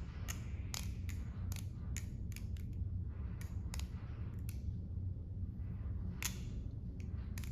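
Stainless steel balisong with its latch removed being flipped: irregular sharp metallic clicks and clacks as the handles swing and snap against the blade, with a pause of about a second and a half late on.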